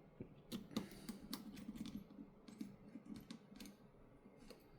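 Faint, irregular light clicks and taps of small repair tools and tiny parts being handled on a workbench during smartphone reassembly.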